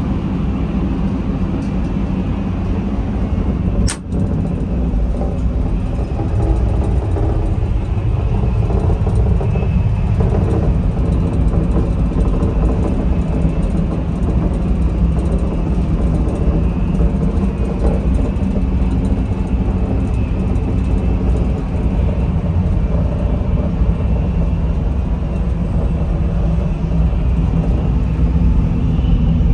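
Steady low rumble and rush of a Shinkansen bullet train running, heard from inside the car, with a single sharp click about four seconds in.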